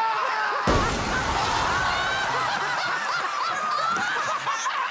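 People laughing, whooping and cheering in a television studio, with a sudden loud rush of noise about a second in that dies away over the next second or two.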